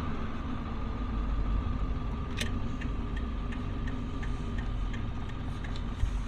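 Diesel pickup truck running at low speed, heard from inside the cab: a steady low rumble with light, regular ticks from a little over a third of the way in, and a short thump near the end.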